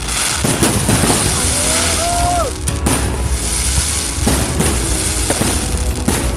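Aerial fireworks going off in repeated bangs and crackles, mixed with background music.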